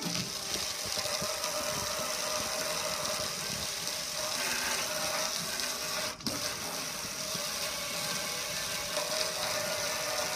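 Pressure washer running, its water jet hissing and splashing against a gas grill, with a brief break about six seconds in.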